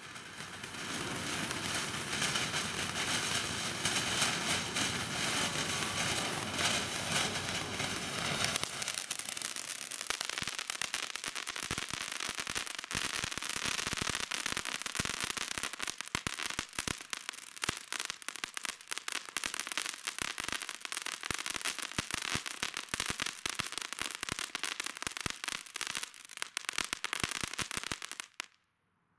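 Cutting Edge "Picture Perfect" ground fountain firework spraying: a steady hissing gush for about the first nine seconds, then dense rapid crackling that cuts off suddenly just before the end.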